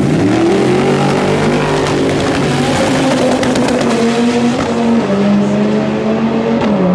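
Racing car engine noise, loud and continuous, holding steady notes that step in pitch every second or two, with a rising rev just after the start and a run of sharp crackles about three to four seconds in.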